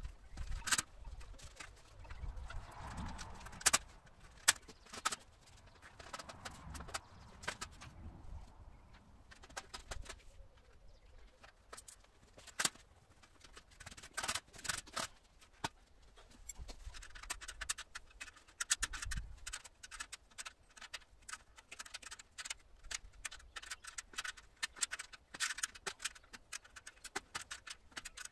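Scattered clicks, clinks and knocks of metal frame parts being handled and fitted together by hand as a saw stand's leg frame is assembled, with a few heavier thumps as pieces are set down.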